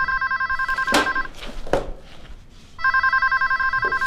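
Electronic desk telephone ringing with a fast warbling two-tone trill. One ring ends about a second in and the next starts near three seconds in: an incoming call not yet answered. A couple of sharp knocks and thuds fall between the rings.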